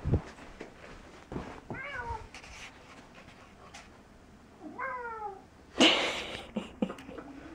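A domestic cat meowing twice, each a single meow falling in pitch, about two and five seconds in. A low thump comes right at the start, and a loud, brief scuffing noise comes about six seconds in.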